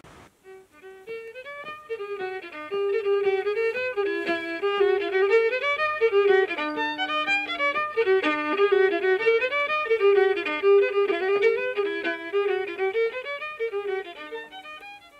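Fiddle music: a single fiddle playing a quick run of notes, starting about a second in and fading out near the end.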